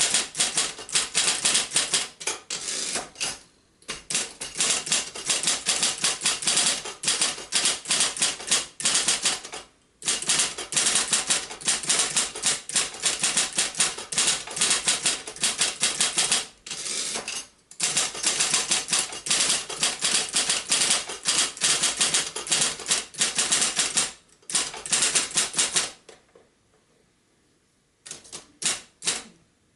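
1972 Royal Apollo 10-GT electric typewriter, built by Silver-Seiko, typing in fast runs of crisp keystrokes broken by short pauses, with a lull of about two seconds near the end before a few more strokes. Its flywheel-assisted motor is very quiet beneath the key strikes.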